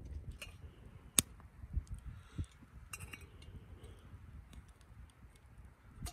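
A few sharp clicks and clinks over a steady low rumble, one click much louder about a second in.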